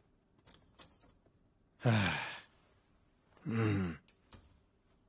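A man sighing twice, each a breathy voiced exhale that falls in pitch, the first about two seconds in and the second a second and a half later.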